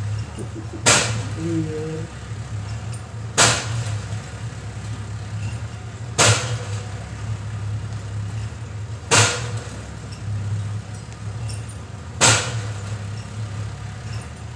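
A sharp bang repeating at an even pace, about every three seconds, five times, over a steady low mechanical hum.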